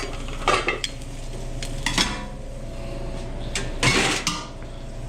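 Dishes, pots and utensils clattering on a restaurant kitchen line: a handful of separate knocks and clinks, the loudest cluster about four seconds in, over a steady low hum.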